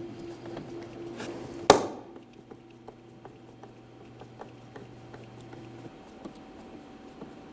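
Hand Torx driver snugging a screw down in a car door, with a sharp knock about two seconds in and light scattered clicks of the tool and metal parts.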